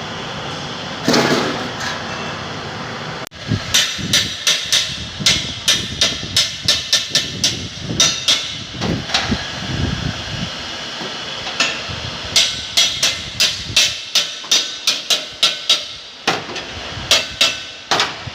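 Hammer striking car body sheet metal in panel-beating (denting) work: a long run of sharp blows, about two to three a second, with a short pause near the end. Before the blows start, a steady noise runs for the first few seconds.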